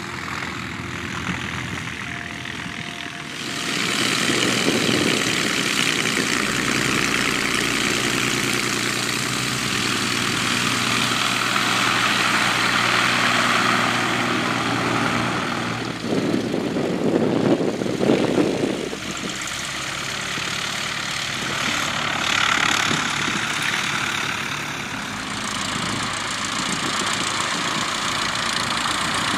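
Light aircraft piston engines and propellers running as the planes taxi, a steady whirring drone whose character changes from one aircraft to the next. It jumps louder about four seconds in, with a brief heavier rumble around the middle.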